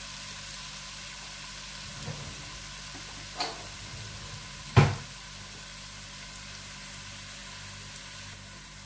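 Onions and whole garlic cloves frying in oil in a cooking pot, a steady sizzle. There is a light click about three and a half seconds in and a sharp knock a little before the middle.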